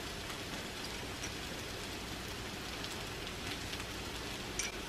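Shrimp fried rice with vegetables sizzling steadily in a hot pan over high heat as soy sauce is spooned over it, with one light click near the end.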